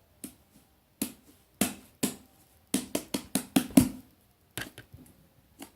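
Fluffy slime being squeezed and stretched by hand, making a run of sharp pops and clicks, about a dozen, coming fastest around the middle.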